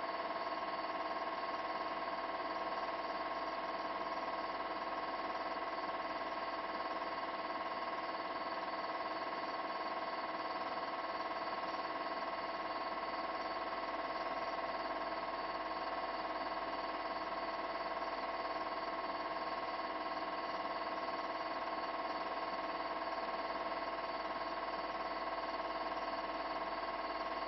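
Steady buzzing hum made of several fixed tones, unchanging throughout, with nothing else over it.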